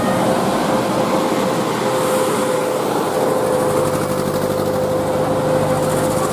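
Bus engine running close by, with a steady whine held over the engine noise.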